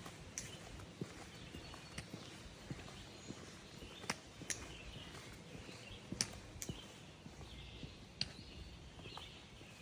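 Scattered sharp clicks, about ten at uneven spacing, over a faint steady outdoor background with some faint chirping.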